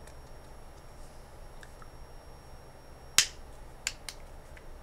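Small plastic clicks from the camera-glasses temple arm being handled as its cover is fitted back on: one sharp click about three seconds in, then two lighter ones just after.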